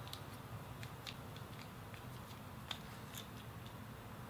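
Faint, scattered clicks and scrapes from a plastic BS 1363 13 A plug being handled while its strain-relief screws are undone, over a low steady background hum.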